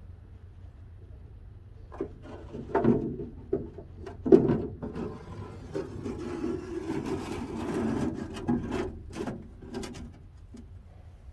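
Wire smoker racks knocking and sliding against a metal box smoker as they are handled and put in: a few sharp clanks between about two and four and a half seconds in, then several seconds of scraping and rubbing with a few more knocks.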